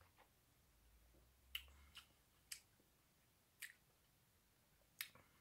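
A handful of faint, short wet mouth clicks and lip smacks, spaced irregularly, as a sip of whisky is worked around the mouth while tasting it.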